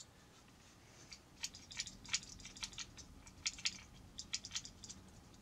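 Faint, irregular small clicks and rattles of a nut being fitted by hand onto a screw through a 3D-printed plastic GoPro mount hinge, starting about a second and a half in.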